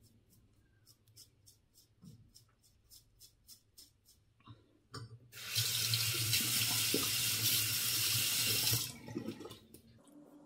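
A tap runs into the sink for about three and a half seconds near the middle, as the razor is rinsed. Before and after it come faint, quick scraping strokes of an Isana Men four-blade disposable razor through lathered stubble.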